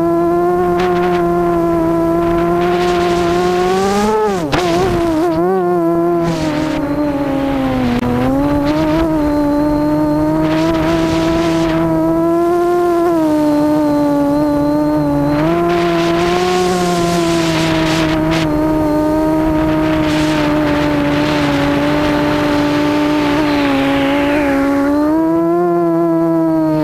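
Quadcopter's four Cobra 2213 2000kv brushless motors spinning APC 7x4 propellers in flight, a steady whine whose pitch rises and falls with the throttle. About four seconds in the pitch swoops and wavers sharply before settling, and rushing air noise swells in and out several times.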